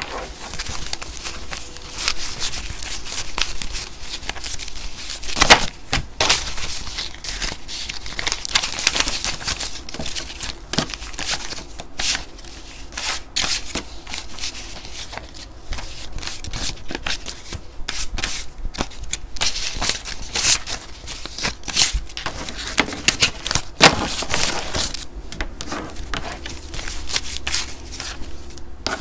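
Paper banknotes being handled and sorted by hand: irregular rustling and crinkling with quick flicks and snaps of the bills.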